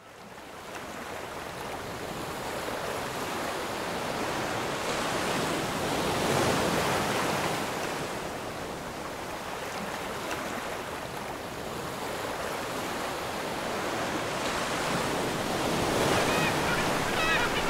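Heavy North Sea surf breaking and washing over a rocky shore: a continuous rush of waves that swells and eases, rising about a third of the way in and again near the end.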